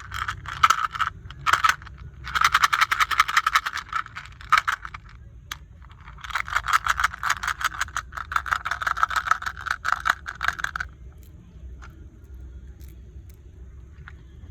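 Small hard candies rattling and clattering in two long runs of rapid clicks, the second about five seconds long, with a few shorter clatters near the start and scattered faint ticks near the end.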